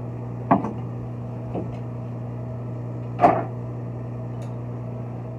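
A steady motor-like hum, with three light knocks and clicks from small trim parts being handled as a shower valve handle is assembled. The loudest knock comes about three seconds in.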